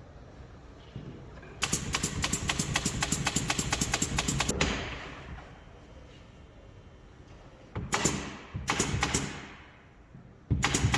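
Power drill-driver running in bursts with a rapid rattling clatter, like screws being driven: one long burst of about three seconds, two short ones a few seconds later, and another starting near the end.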